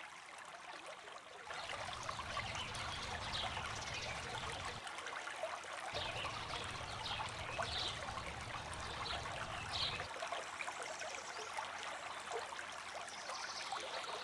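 Flowing water of a stream running and trickling steadily, coming up about a second and a half in, with a few short high chirps over it.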